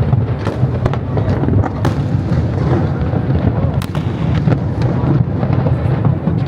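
Aerial fireworks going off in rapid succession: many sharp cracks over a continuous low rumble of booms.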